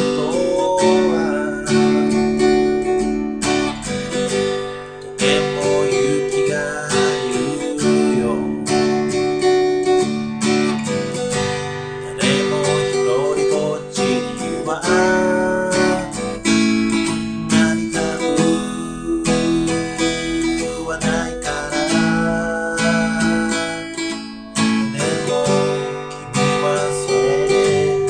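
Acoustic guitar strummed in steady chords, with a man's voice singing along.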